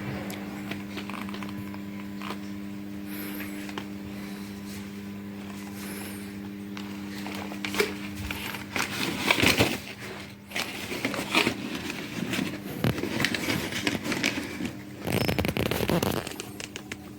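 Microwave oven running with a steady hum, then from about eight seconds in a busy run of sharp crackles, clicks and scrapes.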